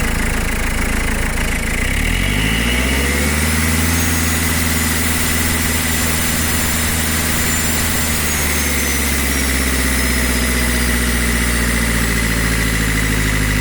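Vehicle engine being revved: it speeds up about two seconds in, holds at the raised speed, then drops back to a lower steady speed about eight seconds in and keeps running.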